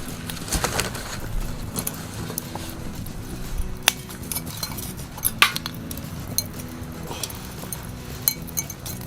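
Charcoal pieces clinking and knocking in a small steel fire pit, in scattered sharp clicks of uneven strength.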